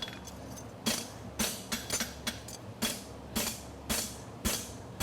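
Hand hammer striking hot steel bar stock on an anvil, about nine ringing blows at roughly two a second, starting about a second in, as a bar shoe is flattened. A steady low hum from a Portacool evaporative cooler fan runs underneath.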